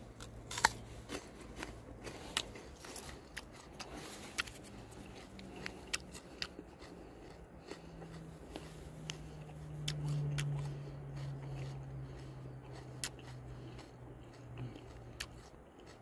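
Close-up chewing of a raw peeled cheonmundong (Asparagus cochinchinensis) tuber with an ilyeopcho fern frond: a series of short crisp crunches and mouth clicks. A low, drawn-out hummed 'mmm' runs through the middle while he chews.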